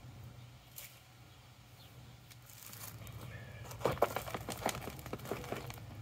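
Black plastic grow pot full of soil crinkling, creaking and knocking as it is handled and tipped over a bin, with rustling that turns into louder clattering from about four seconds in.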